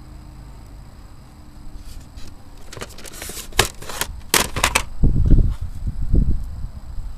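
Handling noise close to a pocket camcorder's microphone: a quick run of sharp clicks and clacks about three seconds in, then several low thumps.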